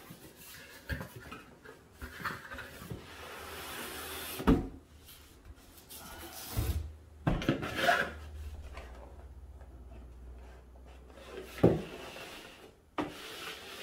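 Cardboard product box being handled and opened: cardboard sliding and rubbing, with several knocks as the box and its packing are moved, the loudest about four seconds in and near the end.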